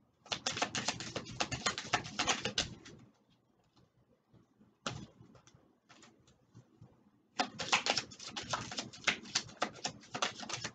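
A deck of Kipper oracle cards being shuffled: two runs of rapid flicking clicks, one in the first three seconds and another starting about seven seconds in.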